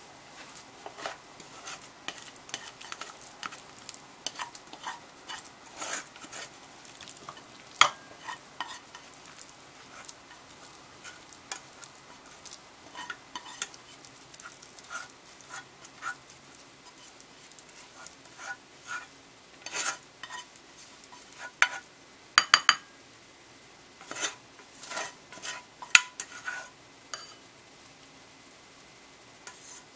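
A spoon scraping and tapping in a pot of cooked oatmeal, with a cluster of sharper, ringing clinks of utensil on cookware about two-thirds of the way in.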